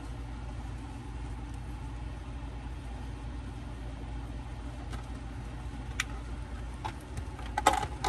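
Steady low hum in the background, with a sharp click about six seconds in and a short clatter of clicks near the end as small plastic action-figure parts are handled.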